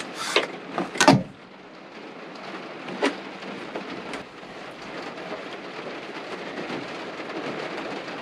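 A few sharp knocks in the first second or so, then steady rain falling.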